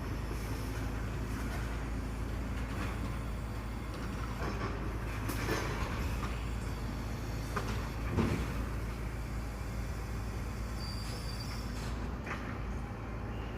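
Garbage truck running with a steady low engine rumble, with two louder bumps about five and a half and eight seconds in and a faint high squeal near the end.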